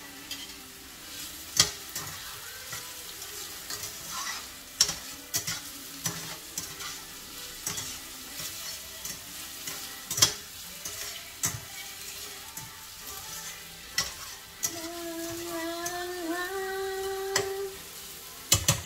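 Onion and garlic sizzling in oil in a stainless steel frying pan, the spatula scraping and clicking against the pan as it stirs. A voice hums for a few seconds near the end.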